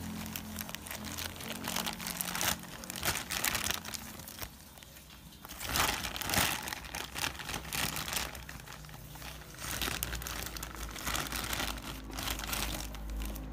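Clear plastic bag crinkling and rustling in irregular bursts as it is pulled off a new motorcycle cylinder block, loudest about six seconds in.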